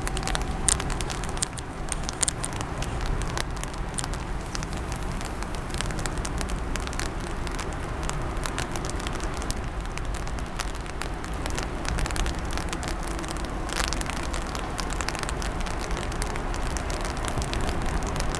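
Steady rain falling, with many close raindrops ticking sharply.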